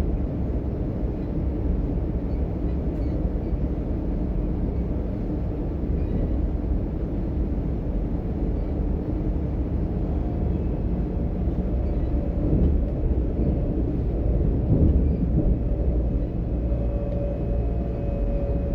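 DB Class 425 S-Bahn electric multiple unit running between stations, heard from inside the car: a steady rumble of wheels on the track. A faint electric whine comes in near the end.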